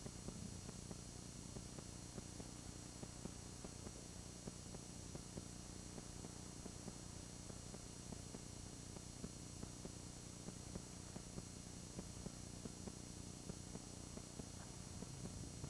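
Faint steady electrical hum under an even hiss, with light scattered crackles: the noise floor of an old videotape recording with no distinct sound on it.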